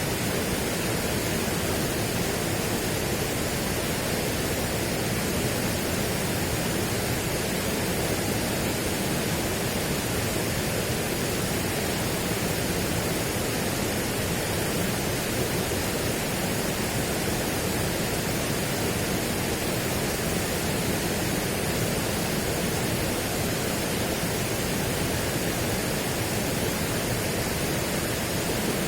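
Steady, even rushing noise, unchanging in level, spread from deep to high pitches with no distinct events.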